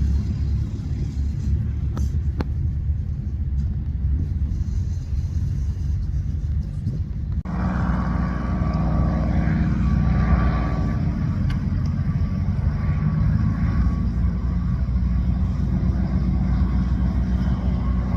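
A steady low rumble of a running engine; about seven seconds in the sound changes abruptly to a fuller engine noise with a steady whine over it.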